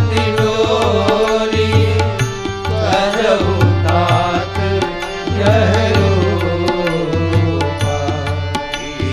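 Devotional bhajan music: tabla strokes over a steady held drone, with a voice singing long, wavering notes.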